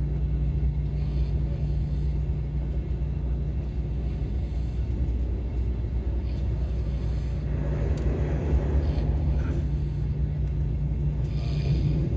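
Steady low rumble of a KTX high-speed train running at speed, heard inside the passenger cabin.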